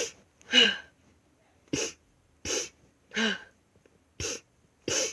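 A memory-foam squishy toy squeezed over and over by hand, making short breathy puffs of air about every three-quarters of a second. A few of the puffs end in a brief falling squeak.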